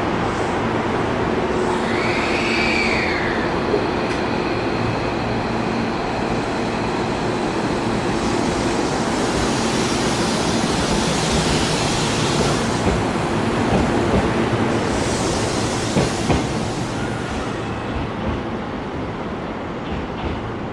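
Hankyu electric train running past on jointed rail, a steady rumble with its wheels knocking over the rail joints several times in the second half. A brief high squeal rises and falls about two seconds in.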